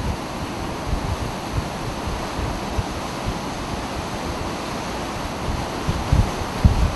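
Hurricane-force wind driving heavy rain, a steady rush of noise, with gusts buffeting the microphone in low thumps near the end.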